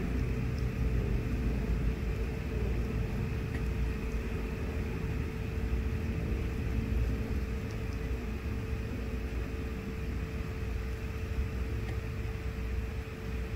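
Steady low rumble with a constant mid-pitched hum, unchanging throughout.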